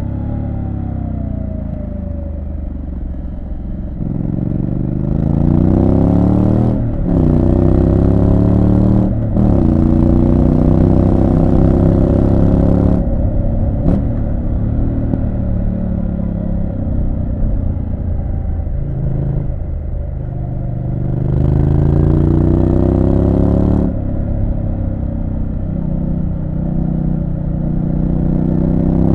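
Triumph Street Scrambler 900's parallel-twin engine under way, accelerating hard from about four seconds in and shifting up twice in quick succession. It eases off for several seconds of lower-revving running, then pulls hard again about two-thirds of the way through before backing off once more.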